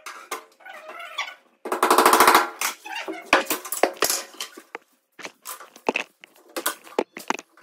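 A rapid mechanical rattle lasting under a second, followed by scattered knocks and clatters of plywood strips being handled and pressed into the grooves of a plywood headboard.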